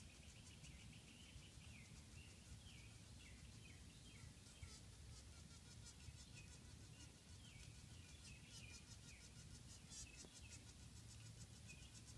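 Faint outdoor background of insects chirping in rapid trains of high clicks, with short falling bird chirps repeated every second or so.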